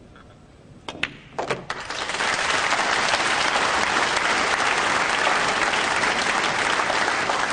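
A few sharp clicks of pool balls, the cue striking the cue ball and ball hitting ball, about a second in. From about two seconds the audience applauds, loud and steady.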